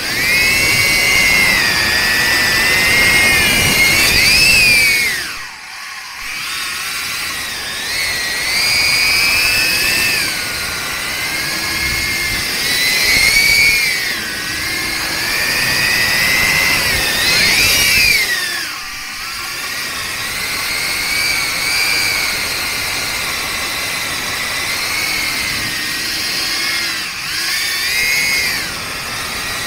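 Darwin FPV CineAPE 25 cinewhoop's brushless motors and 63 mm ducted propellers whining in flight, the pitch rising and falling with the throttle. Three times the whine briefly drops away as the throttle is cut, then comes back.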